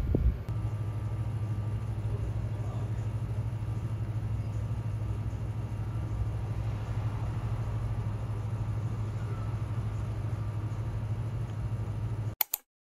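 Steady low rumble of a car running, even in level throughout, that cuts off suddenly near the end.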